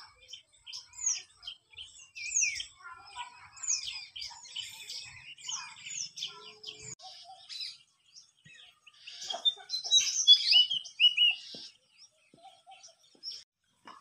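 Small songbirds chirping in quick, high, downward-sweeping notes, with a denser and louder flurry of chirps about nine to eleven seconds in.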